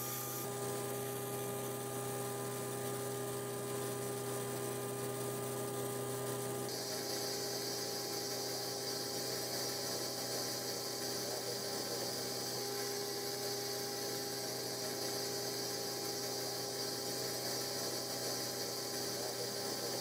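A steady hum with a few fixed steady tones under a constant hiss. Its character changes abruptly about seven seconds in.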